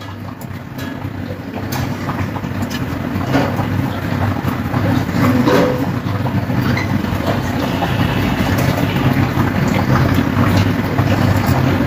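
A steady low rumble that grows slowly louder, with a few faint clicks over it.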